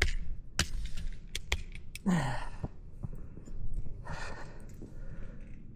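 A man's short falling grunt and a heavy breath out, with a few sharp clicks and knocks in the first two seconds, as he works his way into a deep snowdrift.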